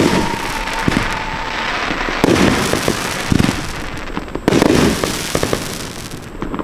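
Consumer 30-shot fireworks cake (Winda Spider Bot P5596) firing aerial shots. Loud bursts come about every two seconds, each trailed by dense crackling, and the sound dies down near the end.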